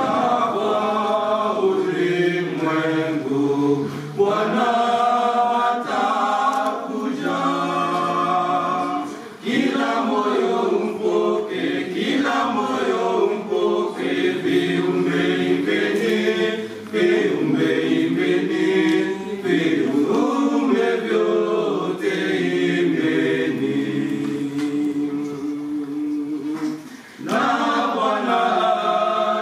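Small group of male voices singing an African Christmas carol a cappella, phrase after phrase with brief breaks between them.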